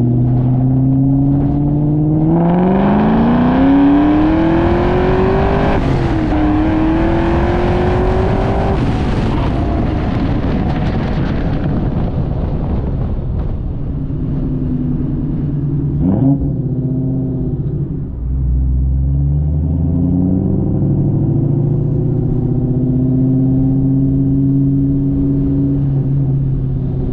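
2003 Mustang Cobra's supercharged 4.6-litre DOHC V8 (VMP 2.3 blower, long-tube headers, X-pipe and Bassani catback) pulling hard, its pitch climbing steeply, dipping briefly about six seconds in and climbing again. It then backs off and settles into a steady, lower cruising note.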